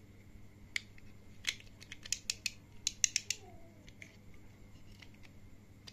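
A quick run of sharp clicks and clacks, about a dozen, most packed into a couple of seconds before the halfway point, as a toy spinning top with a metal ring is handled and fitted onto its black plastic launcher.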